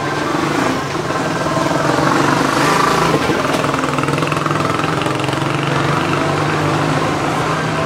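A small engine running steadily with a low hum, a little louder for a moment about two to three seconds in.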